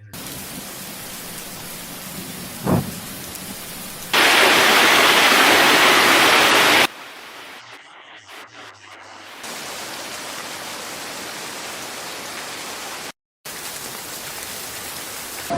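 Heavy rain hissing steadily across a string of edited clips. It is much louder for about three seconds in the middle, and there is a brief sharp sound about three seconds in and a short drop to silence near the end.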